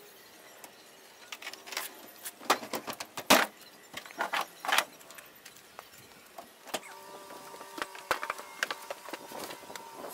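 Knocks, clatters and creaks of someone handling a pickup truck's folding hard bed cover and climbing up onto it, loudest in a cluster over the first half, then lighter clicks over a faint steady hum.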